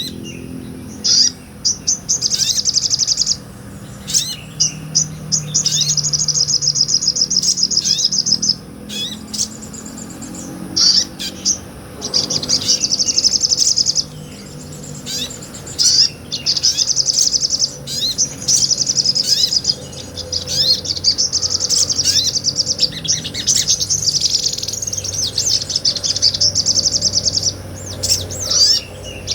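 Sogon (sotong), a small nectar-eating songbird, singing energetically: long, high, very fast trills lasting a few seconds each, broken by short sharp chips, and going on almost without pause.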